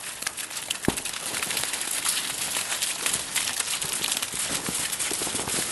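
Sheep hooves crunching through crusted snow and slush as the flock hurries along: a dense run of small crunching steps that builds over the first couple of seconds, with one sharp knock about a second in.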